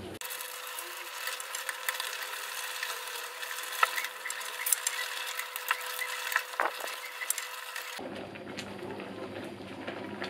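Wooden spatula stirring coconut-milk sambal in an aluminium pot, with scattered clicks and knocks against the pot. A steady hum lies under it and stops about eight seconds in.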